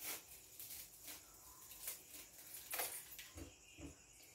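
Faint, scattered clicks and light crackles of dry sotanghon (glass noodles) being cut into short pieces.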